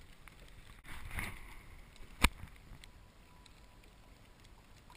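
Faint background noise with one sharp click a little over two seconds in, then near silence.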